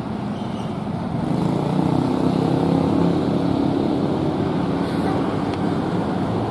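A bus engine running close by, getting louder about a second in and then holding steady.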